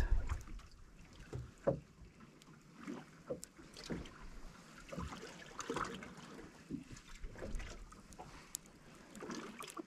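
Quiet boat sounds on a calm sea: faint, irregular knocks and light water noise against a fishing boat's hull.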